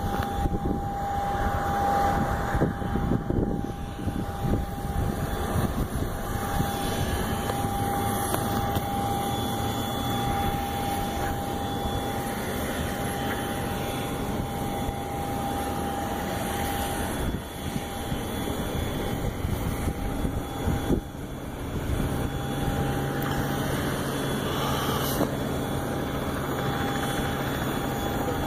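Jet aircraft taking off and climbing away: a steady engine roar with a constant higher tone running through it.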